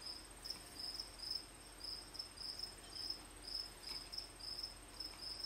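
A cricket chirping steadily, short high chirps repeating about three times a second.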